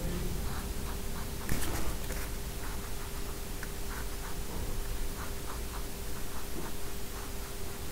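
Light, scratchy strokes of an aqua painter water brush's bristles dragging across watercolour paper, over a steady hum, with one louder brief scrape about a second and a half in.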